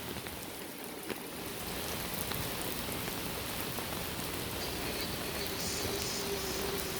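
Steady rain falling, with scattered drops ticking on an umbrella held overhead.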